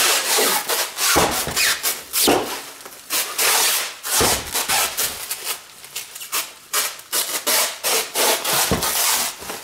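Handheld roll of plastic stretch wrap being unwound and pulled around a bubble-wrapped bundle, the film crackling and rubbing over the bubble wrap in a run of uneven strokes.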